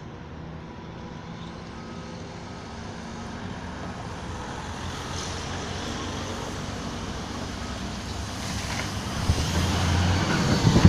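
Diesel coach bus approaching and passing close by, its engine and the hiss of its tyres on the wet road growing steadily louder and loudest near the end.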